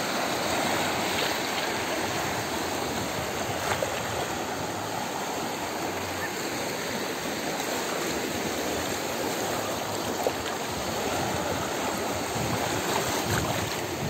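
Calm sea: small waves washing steadily onto the beach.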